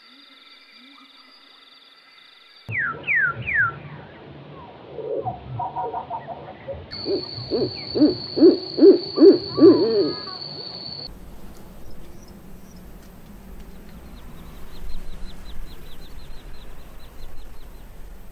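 An owl hooting: a quick run of about seven low hoots, the loudest sound, with three short falling whistles a few seconds before it.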